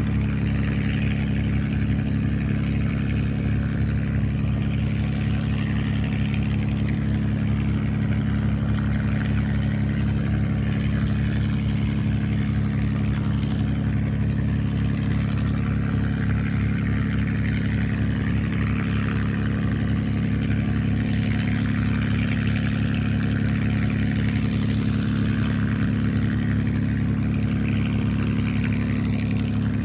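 P-51 Mustang's Merlin V-12 engine idling at low power as the fighter taxis: a deep, even drone that holds steady without any revving.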